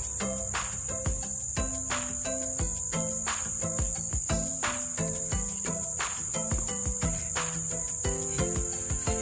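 Insects chirring in a steady, unbroken high-pitched drone, under a simple tune of held notes with a regular beat about twice a second.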